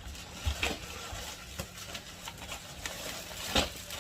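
Metal baking trays being handled, with a few light, scattered knocks; the clearest comes about three and a half seconds in.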